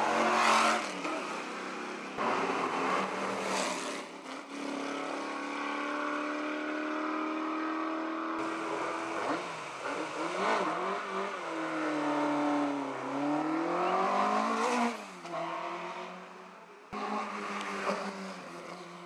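Race car engines revving and accelerating in a string of short clips joined by abrupt cuts. One engine note climbs slowly and steadily for a few seconds. Then comes a run of quick revs rising and falling, and a long drop in pitch that swings back up.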